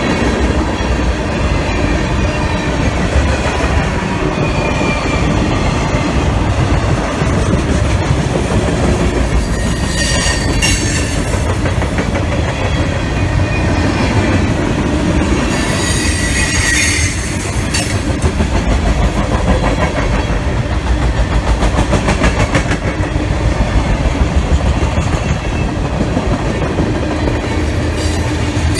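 Freight train cars rolling past, the wheels rumbling and clattering over the rails, with high wheel squeals about ten seconds in and again around sixteen seconds.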